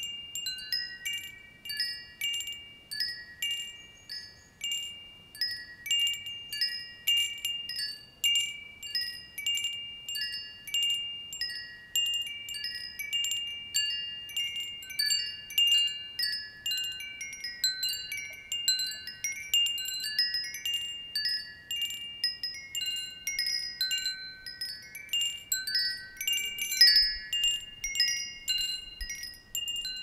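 Metal tube wind chimes swaying and striking at an uneven pace, about one or two strikes a second. Their high, bell-like notes ring on and overlap, with one note ringing through most of the time.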